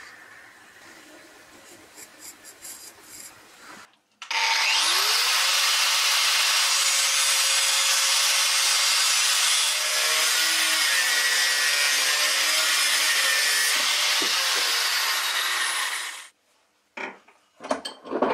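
Angle grinder spinning up about four seconds in and grinding steadily against the steel head of an old sledgehammer for about twelve seconds, then winding down. A few short metallic knocks follow near the end as the steel head is handled.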